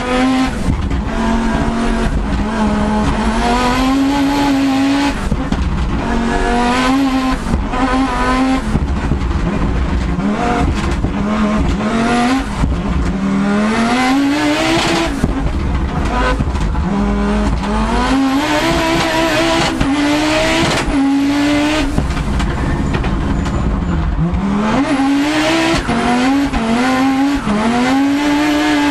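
Audi Quattro S1 Group B rally car's turbocharged five-cylinder engine, heard onboard at full attack: the pitch climbs hard and drops at each gear change, over and over, with a high whistle rising as it builds revs and brief lifts off the throttle between runs.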